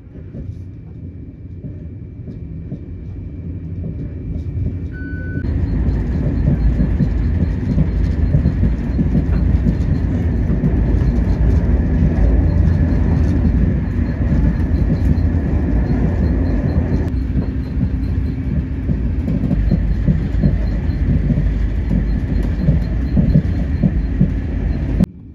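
Intercity train running at speed, heard from inside the carriage: a steady rumble of the wheels on the track. It builds over the first few seconds, jumps louder abruptly about five seconds in, and cuts off suddenly near the end.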